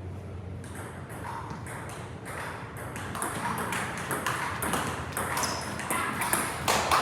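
Table tennis balls clicking off bats and tables, many sharp irregular clicks that become busier and louder from about three seconds in.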